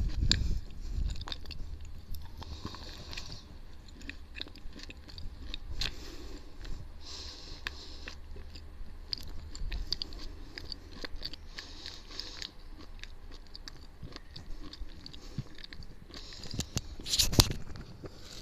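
Close-miked chewing of chalk and clay paste, a stream of crisp crunches and clicks of the mouth, with a louder cluster of crunches near the end.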